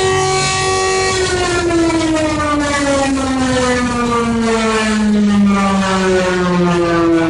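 Emergency alert siren holding a steady pitched tone, then winding slowly down in pitch from about a second in; a second falling tone starts near the end.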